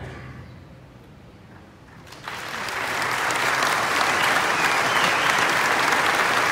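Audience clapping, starting abruptly about two seconds in and building to steady applause.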